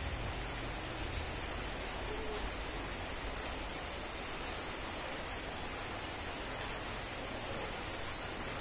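Steady rainfall: an even hiss of rain, with scattered sharper drop ticks.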